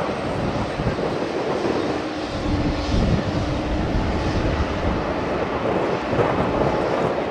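Jet airliner engines, a steady rushing noise.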